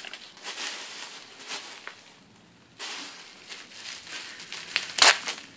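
Packaging rustling and crinkling as it is handled, with a short pause about two seconds in and a sharp click near the end.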